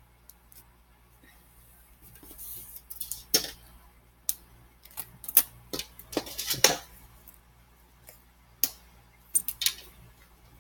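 Scattered clicks, taps and short rustles of hands handling foam squishy toys, over a faint steady hum.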